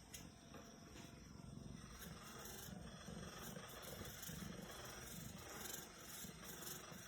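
Percussion massage gun running on its lowest speed setting, a faint rapid low pulsing.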